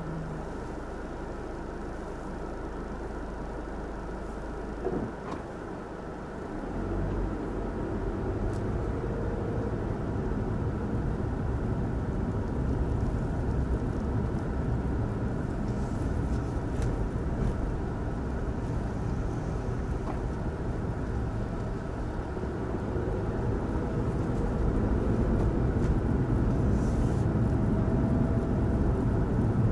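Engine and road noise of a car being driven, heard from inside the cabin through a dash cam's microphone. There is a single click about five seconds in, the rumble gets louder at about seven seconds, and it rises again near the end.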